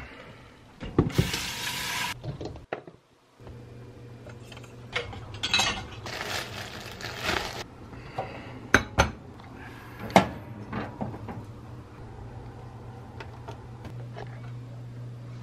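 Kitchen handling sounds: dishes and utensils clinking and a countertop toaster oven's door being pulled open, with several sharp clicks and knocks and two longer bursts of hiss. A steady low hum sets in a few seconds in.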